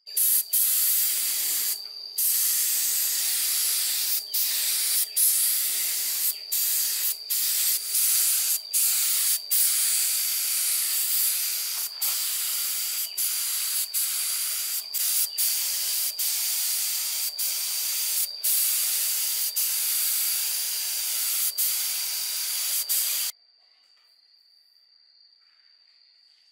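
Loud spraying hiss with many brief breaks, which cuts off suddenly about 23 seconds in.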